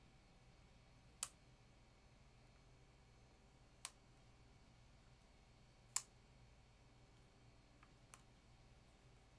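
Near silence with a low hum, broken by a few sharp single clicks at a computer: three spaced about two seconds apart, then two fainter ones near the end.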